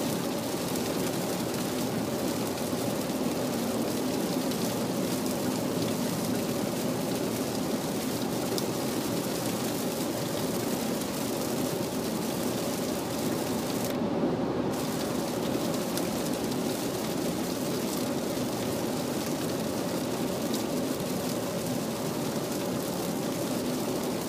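Heavy rain hitting the car's roof and windshield, heard from inside the cabin, over steady tyre and road noise on a wet highway. The high hiss of the rain drops out briefly a little past the middle.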